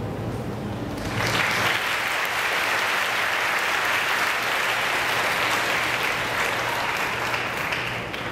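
Audience applauding: it breaks out about a second in, holds steady, and dies down near the end.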